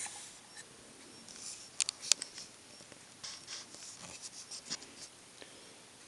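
Fingers handling a small plastic starship model close to the microphone: soft rubbing and rustling with a few sharp little clicks, a quick cluster of them about two seconds in.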